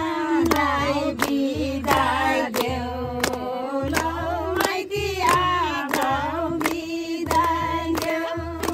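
A group of wedding guests singing a Nepali folk song together in unison, clapping their hands in time at about three claps a second.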